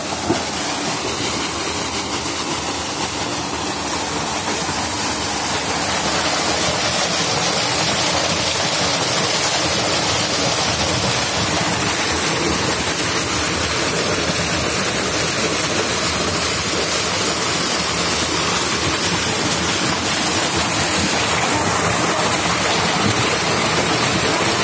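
Strong gush of water pouring from an irrigation pump's outlet pipe into a concrete tank: a steady, loud splashing rush that swells a little about six seconds in.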